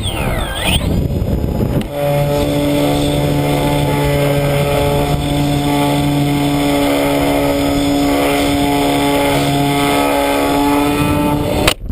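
Remote-control model aeroplane's motor and propeller running, sweeping up and down in pitch over the first two seconds, then holding a steady, loud drone that cuts off abruptly near the end.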